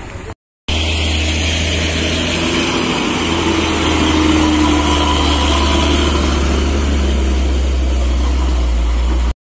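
Heavy truck's diesel engine running close by: a steady, loud, deep rumble whose pitch rises slightly around the middle. It cuts in abruptly just under a second in and cuts off just before the end.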